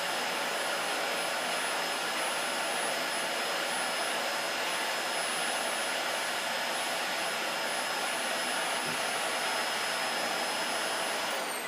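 Dyson DC40 Animal upright vacuum running steadily with a high whine, drawing through its Groom tool attachment as it is brushed through a dog's coat. Near the end it is switched off and the motor's whine falls as it spins down.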